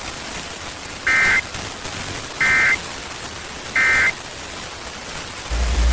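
Emergency Alert System end-of-message: three short bursts of warbling SAME data tones, each about a third of a second and about 1.3 seconds apart, over a steady radio hiss, signalling that the alert has ended. A loud low hum comes in just before the end.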